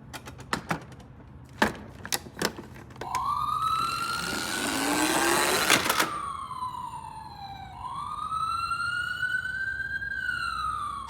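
Toy ambulance's electronic siren wailing, its tone rising and falling slowly twice. It follows a few sharp plastic clicks. A rushing rattle about four to six seconds in ends in a loud click.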